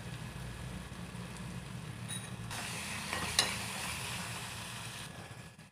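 Masala gravy frying gently in an aluminium kadhai on a low gas flame, with a steel spoon stirring and scraping against the pan; a couple of sharp scrapes come about three seconds in.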